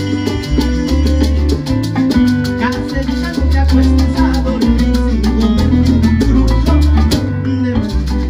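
Live salsa band playing: a deep bass line under keyboard piano, acoustic guitar and congas, with maracas shaking a fast, even pulse. The maracas drop out briefly near the end.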